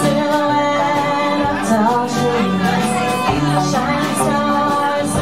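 Live band playing a song: a woman sings lead over strummed acoustic guitar, violin, electric guitar, bass and drums.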